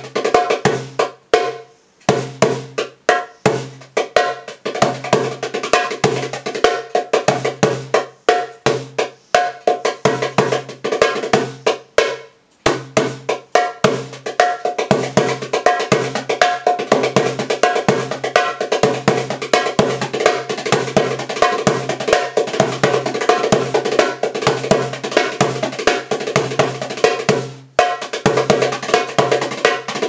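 Darbuka (goblet drum) played by hand in a fast, steady rhythm of sharp strokes, breaking off briefly about a second and a half in, about twelve seconds in, and near the end.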